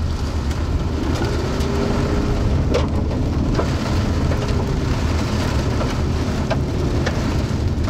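Heavy rain on a moving car's roof and windshield over the steady low rumble of the car driving, with a few scattered sharp taps.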